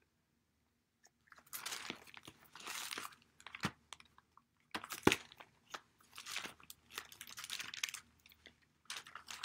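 Sheets of paper rustling and crinkling as they are shuffled and searched through by hand, starting about a second in, with a few sharp taps among them.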